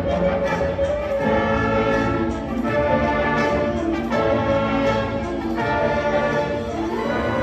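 Indoor winds ensemble playing loud sustained brass and wind chords, the harmony shifting every second or two.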